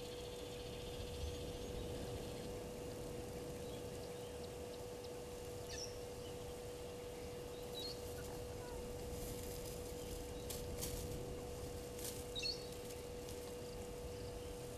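Open-air ambience with a steady low hum and a low rumble of wind noise, over which a few short, high bird chirps sound now and then, the loudest one near the end.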